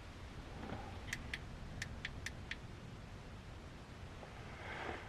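A handful of faint, sharp clicks, about six over a second and a half, over a low steady hum.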